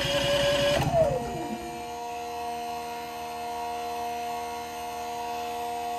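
Cummins Onan P4500i inverter generator engine catching on a cold start and running: high at first, its pitch drops about a second in, then it runs steadily before dying away near the end. The oil light is flashing: the low-oil shutdown cuts the engine.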